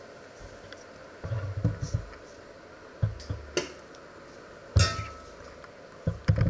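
A handful of short knocks and low bumps, the loudest a sharp knock with a brief ring just under five seconds in as a mug is set down on a wooden counter.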